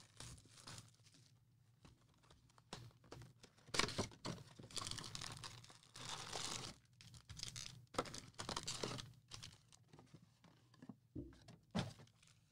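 Cellophane wrapping on trading-card packs being torn open and crinkled in short, irregular bursts.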